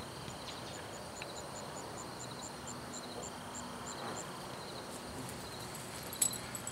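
Outdoor background with a high, thin chirp repeated evenly about four to five times a second, growing a little louder before it stops after about four seconds. A couple of sharp clicks come near the end.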